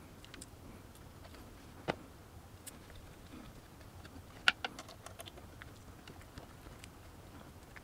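Scattered light clicks and taps of a hand screwdriver driving a small screw through a screw-on cable tie mount into a wooden bike frame, with two sharper clicks about two seconds in and about four and a half seconds in.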